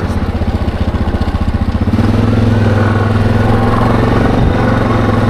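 ATV engine running at low revs with a pulsing putter for about two seconds, then picking up revs and running smoothly as the quad pulls away.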